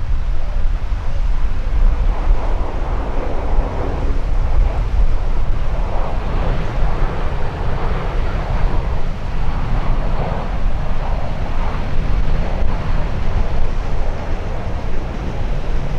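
Wind buffeting the microphone in a heavy, unsteady low rumble. Beneath it, the engine noise of a jet airliner swells and fades.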